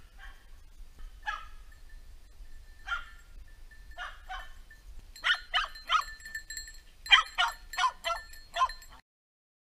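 Hunting dog barking: a few scattered barks at first, then two quick runs of loud barks, the sound cutting off suddenly near the end.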